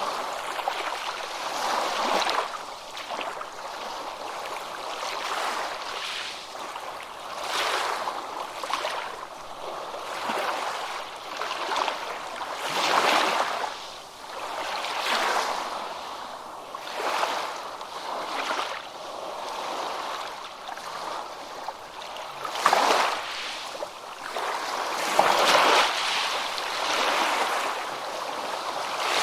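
Ocean waves breaking and washing over water in repeated surges a couple of seconds apart, the strongest near the end.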